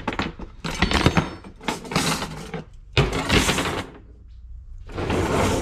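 Metal brake line tubing and a hand tube bender being handled on a wooden workbench: about four short scraping, rubbing clatters, with a sharp knock about one second in and another about three seconds in.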